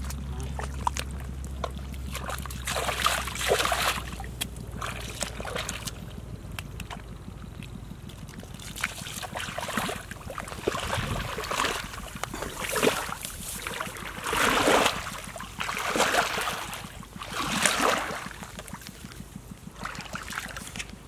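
Bare feet and legs sloshing and squelching through shallow muddy water in a drained rice paddy, a wet splash with every step or so, coming more often and louder in the second half.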